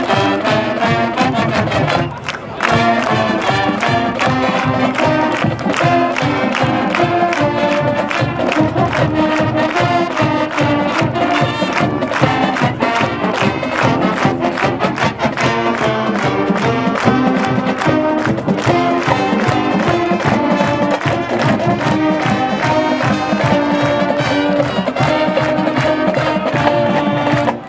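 Marching band playing: brass over drums with a steady beat, with a short break about two seconds in.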